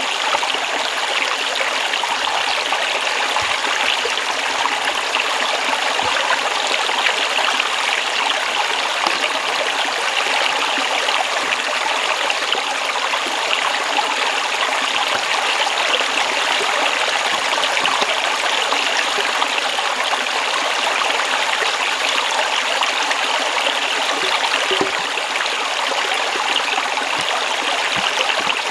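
Running water, a stream flowing steadily with a constant rushing trickle.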